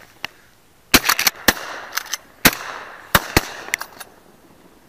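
A volley of shotgun blasts at ducks overhead: about a dozen shots in roughly three seconds starting about a second in, some coming faster than one gun could fire, so several guns are shooting at once, with echo filling the gaps between shots.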